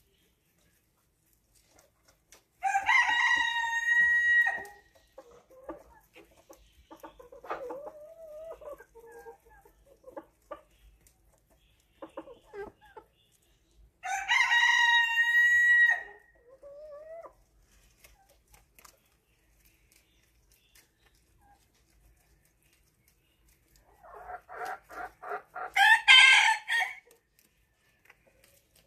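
A rooster crowing twice, each crow about two seconds long and about ten seconds apart. Near the end, a run of quick clucks builds into a loud call.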